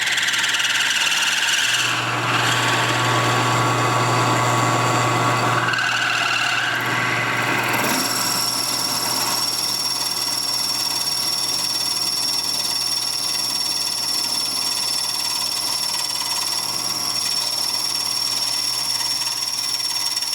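Milling machine running, its homemade rounded cutter plunging into a mold block: a steady motor hum with cutting noise over it. About eight seconds in, a steady high-pitched whine sets in and holds.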